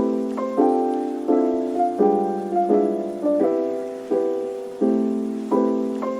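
Background lofi piano music: soft piano chords struck about every three-quarters of a second, each one fading before the next.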